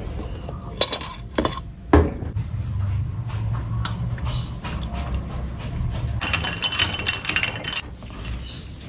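A few sharp clinks of ice and a spoon against a ceramic mug, then oat milk poured from a carton into the mug over ice, the pouring loudest near the end.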